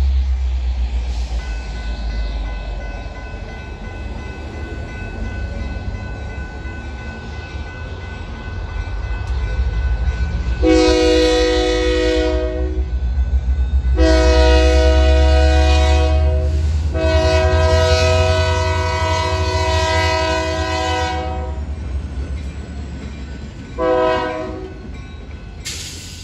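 Union Pacific diesel locomotive approaching a grade crossing with its engine rumbling low. It sounds its multi-chime horn in four blasts: three long ones, then a short one. The crossing's warning bells start ringing about a second and a half in and keep ringing under the horn.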